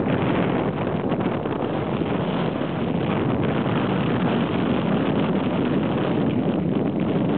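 A car driving along a paved road, heard from inside: a steady, even rumble of tyres and wind.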